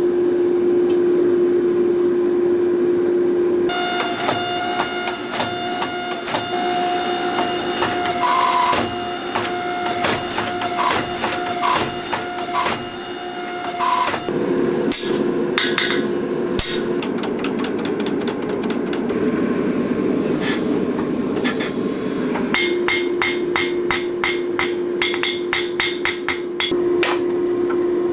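Hammer blows striking hot steel on an anvil while forging a damascus billet, in runs of a few strikes a second, each leaving a metallic ring. A steady hum runs underneath, dropping out for stretches.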